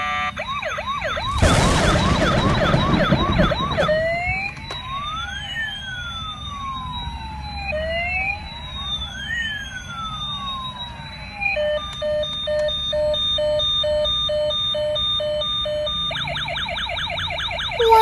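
Toy ambulance's electronic siren cycling through its sounds. It starts with a fast warble, moves about four seconds in to slow rising-and-falling wails, then about twelve seconds in to a pulsed beeping of steady tones, and near the end returns to the fast warble. A loud rushing noise covers the warble from about one and a half to four seconds in.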